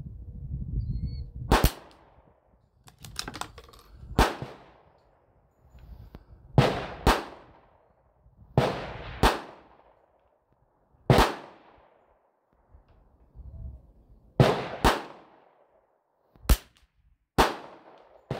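.22 rimfire rifle shots, about ten sharp reports spread irregularly, some in quick pairs about half a second apart. Each report has a brief echoing tail.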